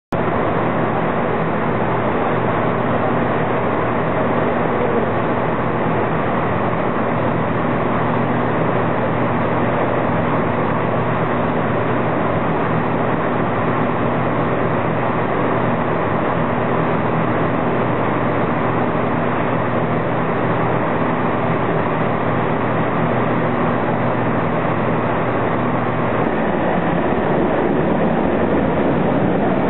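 Diesel train engine running with a steady note over rumbling train noise; the engine note changes about 26 seconds in.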